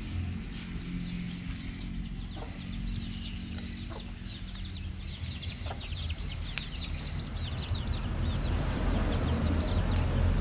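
Hen with chicks: the chicks peep in a quick run of short, high cheeps, with a few low clucks from the hen.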